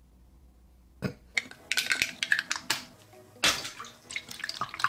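Water splashing and dripping in a toilet bowl, in irregular bursts that start about a second and a half in, with a louder splash about three and a half seconds in.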